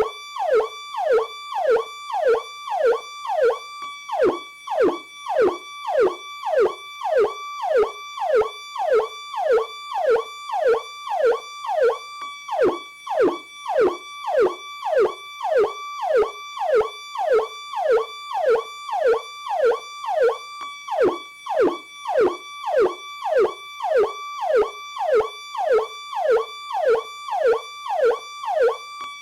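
PowerCall electronic police siren sounding its standard tone: a fast repeating cycle, each a held high note that drops sharply, about one and a half to two times a second.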